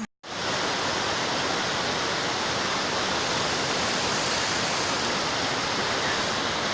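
Waterfall: a steady, unbroken rush of falling water, cutting in abruptly just after the start.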